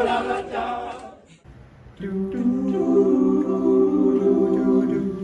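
Unaccompanied voices singing for about a second, then a short break and an a cappella group humming a chord of held notes in several parts.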